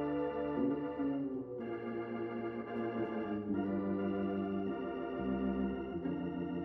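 Two-manual organ played in slow, held chords, the chord changing every second or so.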